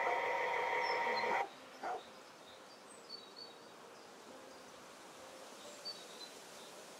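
Model A class diesel locomotive (A15) running along the track with a steady engine sound that cuts off suddenly about a second and a half in. After that there is a faint background hiss with a few short high chirps.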